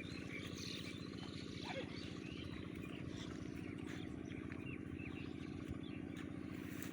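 Small birds chirping over the steady low drone of an engine running.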